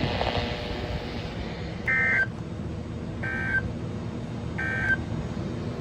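Three short bursts of NOAA Weather Radio SAME digital data tones, a buzzy warble about a second and a half apart. They are the end-of-message signal that closes a weekly alert test, heard over faint radio hiss.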